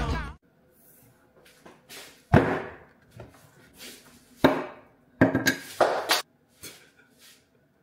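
Whole zucchini thudding onto a wooden tabletop as they are dropped onto a pile. There are about a dozen separate knocks of uneven strength, with one loud thud about two seconds in and a quick run of them near the middle.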